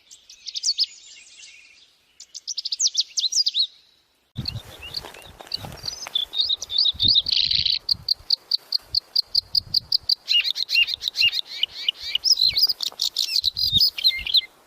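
A small songbird singing: two quick bursts of high chirping, then after an abrupt change, a steady run of evenly repeated notes at about six a second breaking into fast, varied warbling. Low thumps sound beneath the song in the second part.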